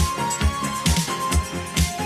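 Background music with a steady beat of about two kick-drum thumps a second under a high melody.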